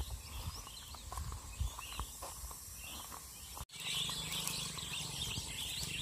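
Small birds chirping in the background over a low rumble on the microphone. After an abrupt cut about two-thirds through, the chirping becomes busier and a low steady hum comes in.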